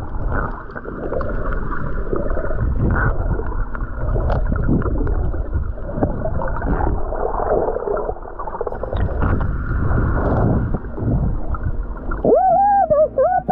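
Breaking waves heard from underwater: a muffled churning rumble of turbulent water and bubbles overhead as a snorkeller swims out through the surf. Near the end a wavering, held tone comes in over it.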